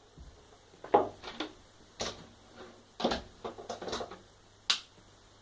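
Handling clicks and knocks as a work light is set up and moved into place. There are single taps, then a quick run of clatter, then one sharp tick near the end.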